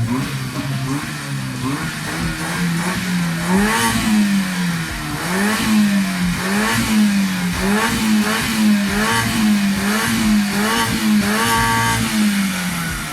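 Nissan Micra K11 engine, freshly swapped in, being revved in repeated throttle blips, its pitch rising and falling about once a second.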